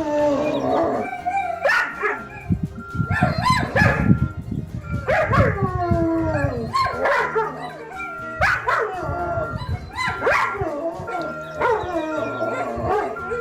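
A pack of canines howling together, long howls sliding down in pitch with sharp yips between them, over the repeated single-tone beep of a reversing truck's backup alarm.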